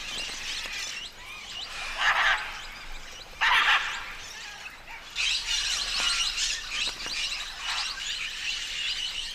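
A flock of parrots chattering and chirping, with two loud, harsh squawks about two and three and a half seconds in.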